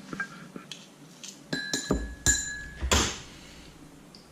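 A few sharp knocks and ringing clinks of a kitchen utensil against a dish, some clinks holding a high ringing tone, between about a second and a half and three seconds in.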